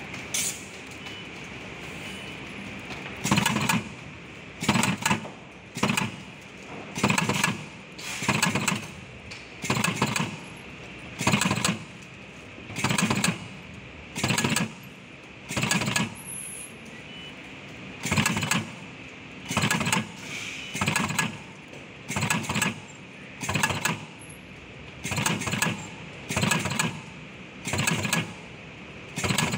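Automatic battery spot welder welding nickel strips onto cylindrical lithium cells: a short weld-and-press cycle repeats about once every second and a half from a few seconds in, over a steady high machine whine.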